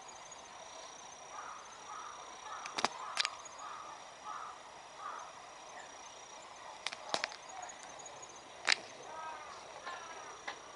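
Quiet outdoor ambience with a faint steady high-pitched tone and several sharp clicks, some in close pairs, the loudest about eight and a half seconds in, plus a few short faint calls near the end.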